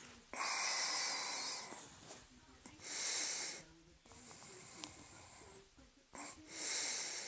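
A person breathing heavily close to the microphone: four breaths about one and a half seconds apart, alternately stronger and weaker.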